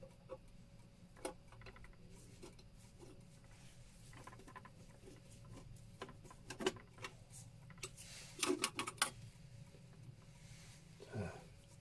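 Irregular light clicks, taps and knocks of hands handling a slate clock's case and movement parts, with a quick cluster of sharp clicks about eight and a half seconds in as the loudest moment.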